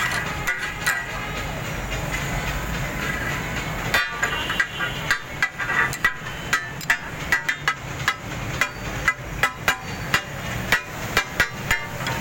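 Metal spatulas striking and chopping on a flat iron griddle in quick, irregular metallic clacks. This is the clatter that gives taka tak its name. It begins about four seconds in, over a steady background hiss.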